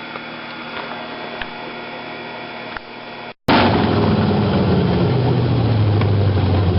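A low hum with a few faint clicks, then, after a sudden cut a little past halfway, a 351 Cleveland V8 running loud and steady on its first startup for camshaft break-in.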